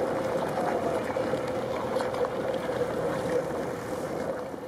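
Ice skate blades scraping and gliding over natural ice, a steady hiss with faint ticks.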